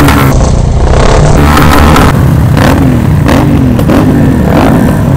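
Motorcycle engine running while riding, its note rising and falling several times with the throttle, under loud wind noise on the microphone.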